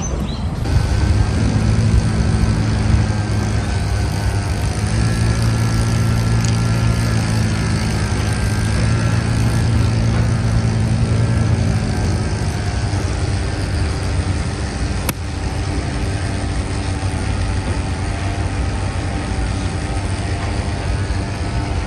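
A motor vehicle engine idling steadily, with a single sharp click about fifteen seconds in.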